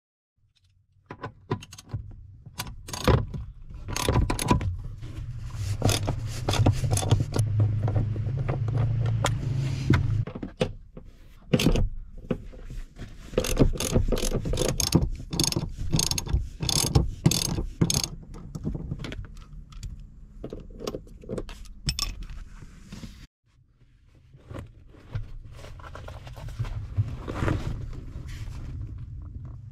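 Hand socket ratchet clicking in quick runs while loosening seat-mounting bolts, mixed with knocks of the tool against metal.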